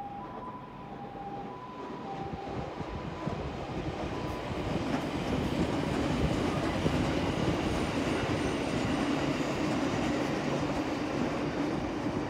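JR Kyushu 787-series electric train (the black "36ぷらす3" set) passing close by: wheel and rail noise builds over the first few seconds, then holds steady as the cars go by. An alternating two-tone warning signal fades out in the first two seconds.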